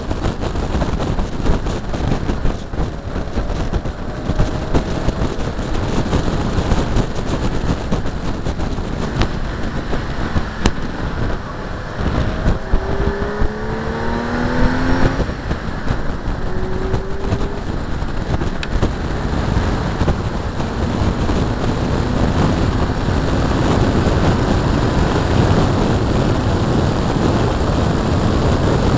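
Wind buffeting and road noise at track speed on a bumper-mounted camera's microphone on a 1988 BMW 325is. Through the middle, a faint engine note rises several times under the noise.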